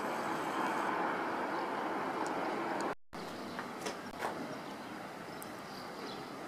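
Distant city traffic noise, a steady hum. It breaks off for a moment about three seconds in and comes back a little quieter, with two faint clicks soon after.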